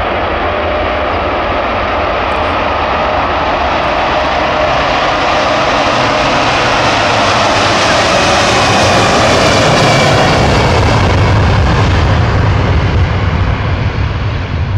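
Boeing 747-200F's four jet engines at takeoff power as the heavily loaded freighter rolls down the runway. The roar builds to its loudest about nine to ten seconds in as the jet passes, with a deep rumble strengthening afterwards.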